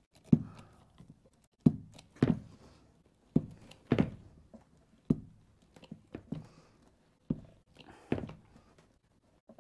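A crimping tool working on the copper barrel of an Anderson 175 A connector: about ten sharp knocks at uneven spacing, roughly one a second, as the crimp is pressed.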